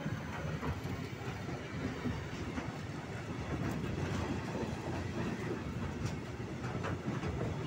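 Freight train of tank wagons rolling past: a steady rumble of steel wheels on rail, with scattered clacks as the wheels run over rail joints.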